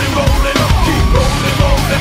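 Loud background music: a heavy rock track with a pounding beat and a wavering melodic line over it.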